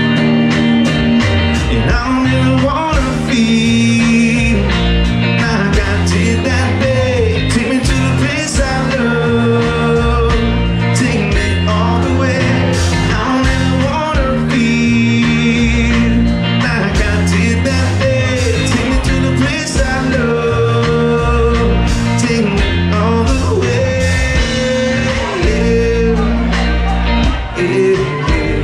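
Live band playing rock music on electric guitars, with drums keeping a steady beat.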